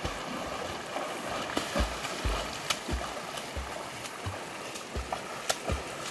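A swimmer's arm strokes splashing the water, in short, irregular splashes about every half second, over a steady hiss of water.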